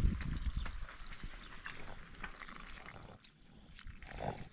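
A thin stream of water trickling and dripping, with scattered small drips, and a low rumble in the first second.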